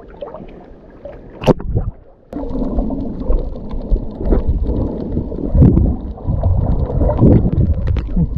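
Water sloshing against a camera at the surface, with one sharp knock about a second and a half in. Just over two seconds in it cuts to a camera underwater beside a snorkeler: muffled low rumbling and gurgling with scattered small clicks.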